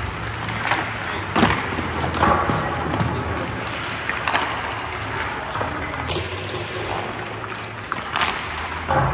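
Ice-rink sounds from a goalie drill: skate blades scraping on the ice and several sharp knocks of puck, stick or pads, over a steady low hum.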